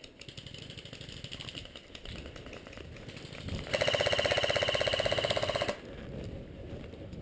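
Airsoft rifle firing one full-auto burst of about two seconds, a fast even rattle close by, that starts a little past halfway and cuts off suddenly. Softer rustling and clatter of movement through branches before and after it.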